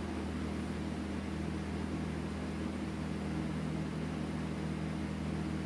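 Steady low hum with a faint hiss: background noise from something running in the room.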